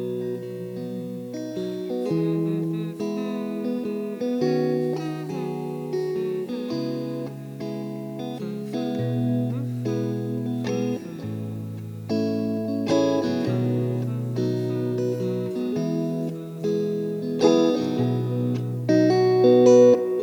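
Guitar playing a strummed chord progression through a Wampler Ethereal delay and reverb pedal, the chord changing about every one to two seconds, with echoing repeats sustaining the notes.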